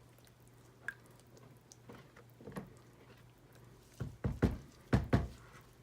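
A few faint clicks, then a quick cluster of about five sharp knocks and thumps a little past the middle, as utensils and containers are handled and set down on a work surface, over a faint steady low hum.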